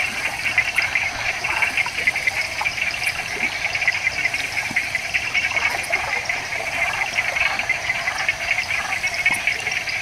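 Tropical rainforest night chorus of frogs and insects: a dense, steady wash of rapid trilling and chirping calls, loudest in a high band, with a few sharper clicks scattered through it.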